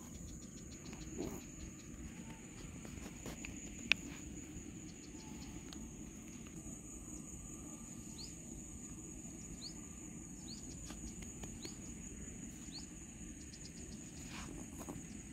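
Outdoor ambience: a steady high-pitched insect drone over low background noise, with a few short rising chirps in the second half. One sharp click about four seconds in is the loudest sound.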